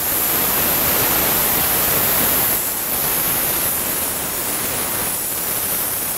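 Acetylene torch flame hissing steadily while it heats a rusted exhaust flange nut, to loosen it so the bolt can be reused.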